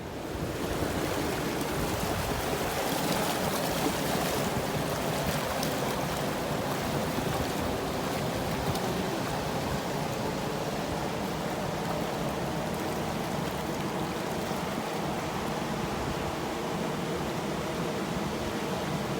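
Ocean surf washing steadily in a continuous hiss, with no distinct single wave breaks standing out.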